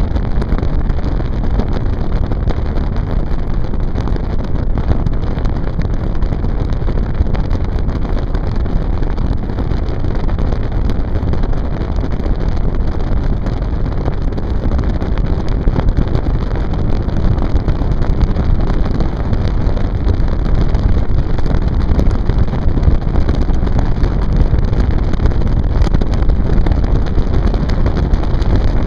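A boat under way: a loud, steady rush of wind buffeting the microphone over the noise of the motor and water.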